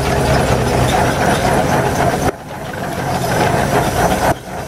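Steam donkey logging winch running hard, its engine and drums hauling a turn of logs in on the line, a steady dense mechanical din. The sound dips sharply twice, about two seconds in and near the end.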